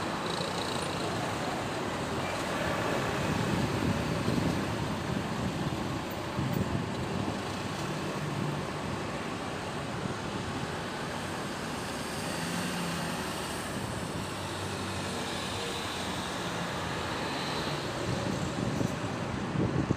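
Steady city road traffic: a continuous din of engines and tyres from passing cars and other vehicles.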